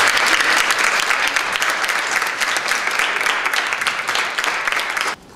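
A seated group of people applauding, many hands clapping at once in dense, steady applause that stops abruptly near the end.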